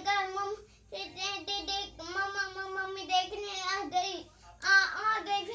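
A young boy singing: a run of phrases with notes held at a steady pitch and short breaks between them, loudest near the end.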